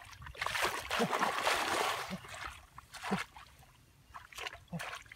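Shallow muddy water splashing and sloshing as hands and feet work through flooded grass, a rushing spell in the first half followed by a few short separate splashes.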